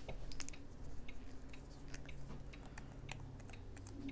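Light, irregular plastic clicks and taps from a small liquid blush tube being shaken and handled.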